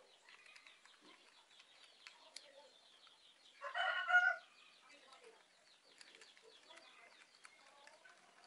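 A chicken calls once, loudly and briefly, a pitched call under a second long, about three and a half seconds in. Around it are faint high chirps and small clicks.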